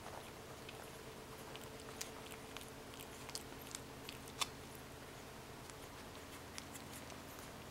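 Nursing puppies suckling at their mother's teats: faint, scattered wet clicks and smacks, with one louder click about four and a half seconds in, over a steady low hum.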